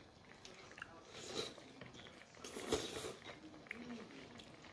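Close-up eating noises from a person chewing hot pot food, with two louder noisy bursts about a second in and near three seconds in, the second with a sharp click.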